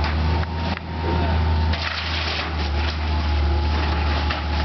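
A heavy demolition machine's engine runs with a steady low drone, with scattered cracks and crunches of debris being broken.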